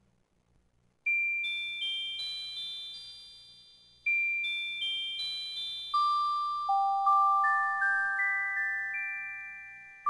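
Background music: a slow music-box melody of single high, ringing notes, starting about a second in after a brief silence.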